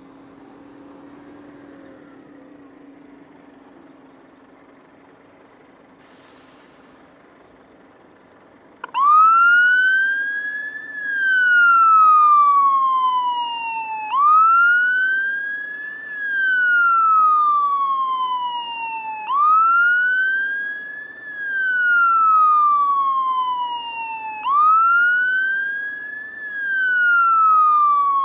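Emergency vehicle siren in a slow wail, starting abruptly about nine seconds in, each cycle rising for about two seconds and falling for about three. Before it there is only a low steady hum.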